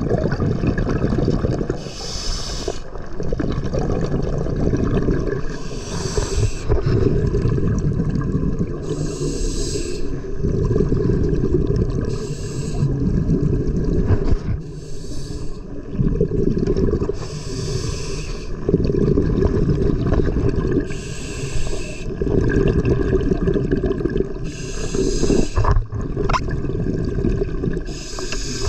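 Scuba diver breathing through a regulator underwater: a short hiss on each inhale, then a longer low rumble of exhaust bubbles, the cycle repeating about every three seconds.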